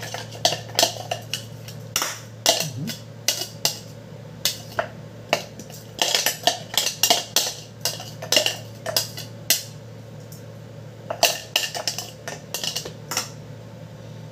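A utensil scraping and knocking against the inside of a plastic food-chopper bowl as minced chilies are scraped out, a run of short irregular clicks and scrapes in clusters with brief pauses.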